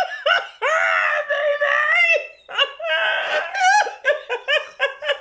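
Two men laughing hard: a long, high-pitched laugh over the first two seconds, then rapid short bursts of laughter.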